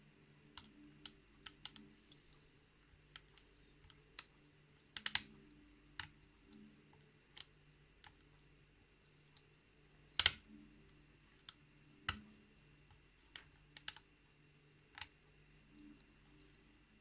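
Lock pick and tension wrench working the pins of a pin-tumbler challenge lock: scattered small metallic clicks and taps, with louder clicks about five, ten and twelve seconds in.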